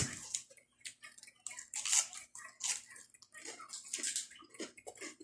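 Close-up wet chewing and crunching of fresh raw leafy vegetables, in quick irregular crackles.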